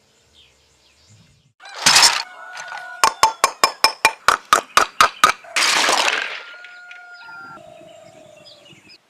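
Hard shell pieces clattering and clinking, most likely raw abalone shells being handled: a rough clatter, then a run of about a dozen sharp quick taps that ring briefly, then another clatter and some fainter clinks.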